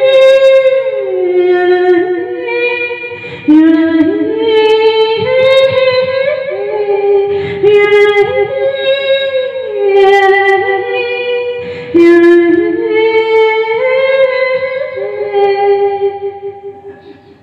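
A woman singing a wordless melody in long held notes that slide from pitch to pitch, with a few sharp percussive hits behind her. The voice fades out near the end.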